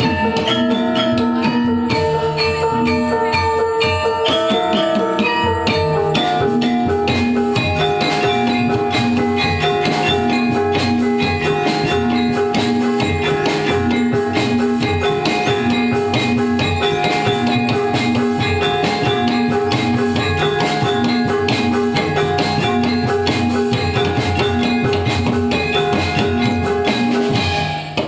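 Gamelan music: metallophones ringing in a repeating pattern over drums. The playing gets busier about six seconds in.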